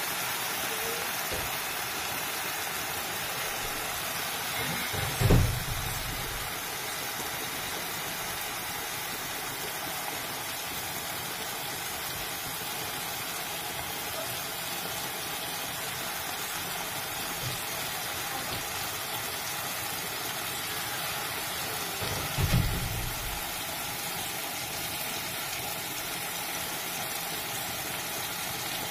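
Steady rushing hiss of lit gas-stove burners under a kadhai of simmering tomato sauce and a pot of boiling pasta. Two dull low bumps break in, about five seconds in and again about twenty-two seconds in.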